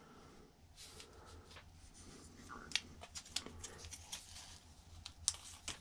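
Faint scattered clicks and scrapes of a small electric fan motor's plastic housing and parts being handled and worked apart by hand, with a few sharper ticks after the middle and near the end.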